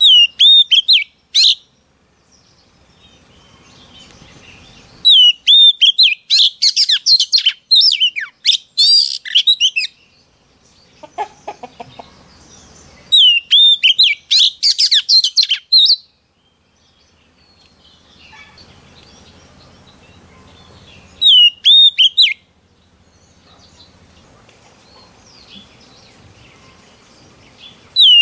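Oriental magpie-robin singing in bursts of a few seconds, each opening with a loud falling whistle and running on into quick, high whistled notes, with pauses of several seconds between bursts.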